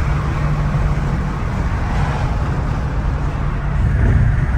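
BMW E60 550i's V8 engine and road noise heard from inside the cabin while driving, a steady low rumble that swells slightly about four seconds in.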